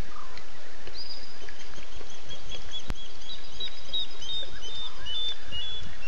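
Night waterhole ambience: a run of short, high repeated calls from a night animal, about three a second, beginning about a second in over a steady hiss. A single sharp click comes about three seconds in.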